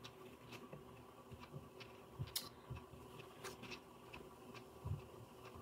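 Faint, scattered soft clicks and taps of a deck of tarot cards being handled and shuffled in the hands, with a few slightly louder taps in the middle and near the end.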